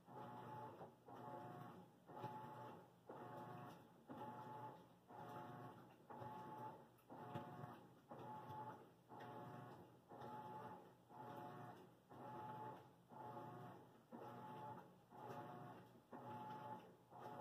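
Faint, steady mechanical running from a laundry machine. A hum swells and fades evenly a little faster than once a second, like a turning drum.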